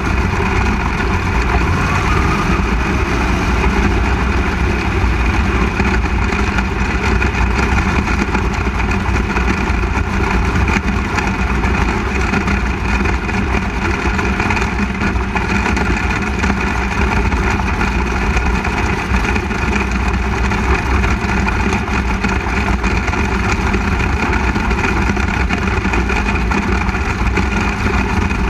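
360 sprint car's V8 engine running at a steady pitch, heard from a camera mounted on the car, with the engines of the other sprint cars close by mixed in.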